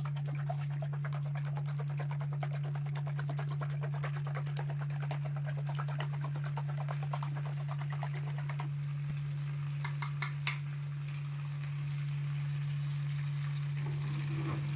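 A spoon beating eggs in a small steel bowl: rapid, continuous metallic clicking that stops a little past halfway, followed by three sharp taps about a second and a half later, all over a steady low hum.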